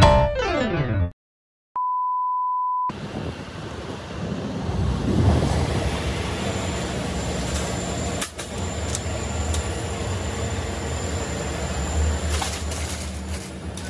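Background music fades out, then after a brief silence a steady electronic beep sounds for about a second. It gives way to the steady hum and clatter of a supermarket entrance as a shopping cart is pushed in, with a few sharp clicks and rattles.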